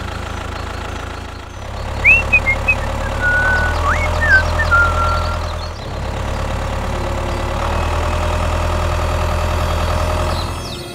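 Diesel tractor engine running steadily at idle with a knocking clatter. It dips briefly twice. A few short bird chirps sound over it in the first half.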